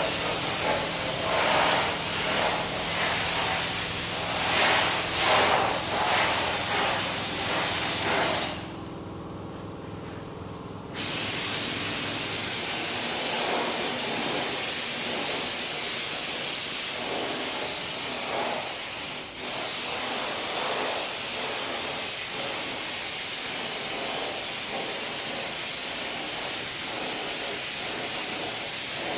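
A steady spraying hiss that surges and eases over the first few seconds, over a faint machine hum. It stops abruptly about eight seconds in, then resumes a couple of seconds later and runs evenly.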